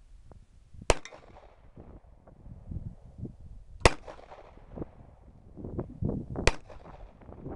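Three handgun shots, about three seconds apart, each a sharp crack followed by a short echo.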